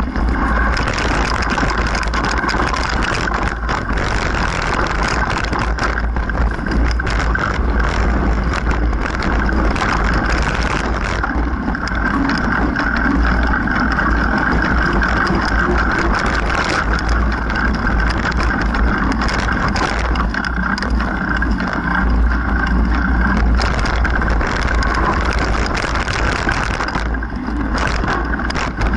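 Mountain bike ridden over rocky singletrack: constant rattling and clatter of the bike over rocks, with a steady low wind rumble on the camera microphone.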